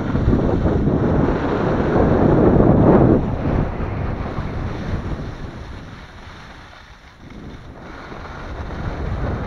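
Skis scraping and hissing over crunchy snow, mixed with wind rushing across the microphone. The noise is loudest over the first three seconds, fades to a low point about seven seconds in, then builds again.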